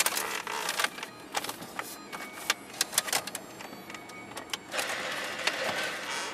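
Hands feeding a wire in behind plastic dashboard trim panels: scattered sharp clicks and taps of plastic, with a stretch of scraping and rustling about five seconds in.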